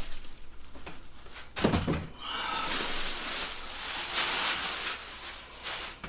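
Packaging being handled around a heavy PC case: a dull thump about two seconds in, then a few seconds of plastic-bag and foam rustling that fades near the end.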